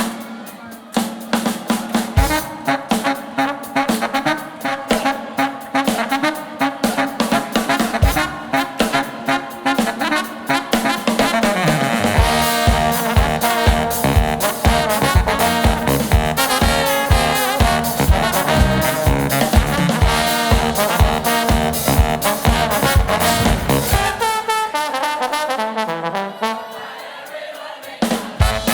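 A brass band playing upbeat music, trombones and trumpets over a drum kit with a steady beat. The drums and low end come in fuller about twelve seconds in, and the band drops to a thinner, quieter passage near the end.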